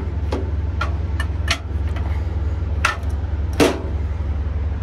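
Sharp metal clicks and knocks from the steel handle of a manual hydraulic pump being worked and moved in its socket, about six irregular strokes with the loudest near the end, over a steady low hum.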